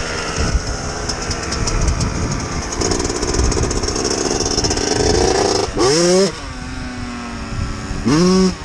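Dirt bike engines running, climbing in pitch for a few seconds, then short sharp revs that rise and drop about six seconds in and again near the end.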